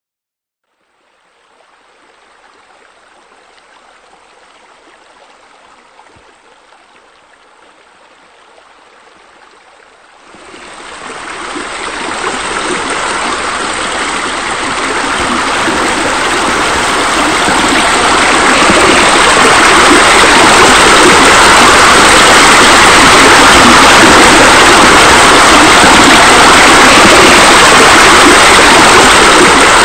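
Steady rush of falling, splashing water from a pool water feature pouring into the pool. It starts faint, swells sharply about ten seconds in, and keeps growing louder until it levels off.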